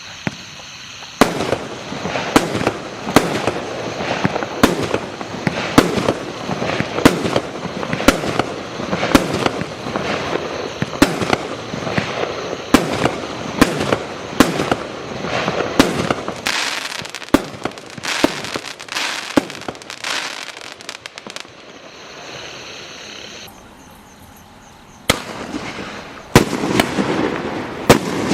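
Primed 'Full House' firework going off: a run of sharp bangs about one a second with crackling between them. The shots stop about three-quarters of the way through, then start again near the end.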